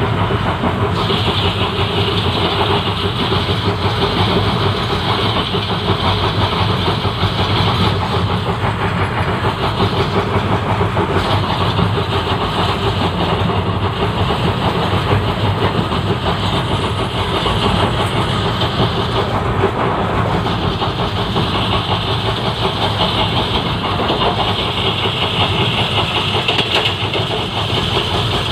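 Train coach wheels running on the rails at speed, recorded right beside the bogie: a loud, steady rumble with a higher hiss that cuts in and out several times.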